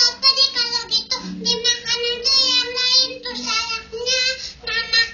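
A woman singing in a high, childlike voice, played through a television's speaker, with a steady hum underneath.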